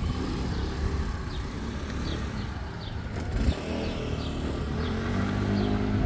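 A motor vehicle's engine running close by, its note rising and growing stronger about five seconds in, with faint short high chirps recurring over it.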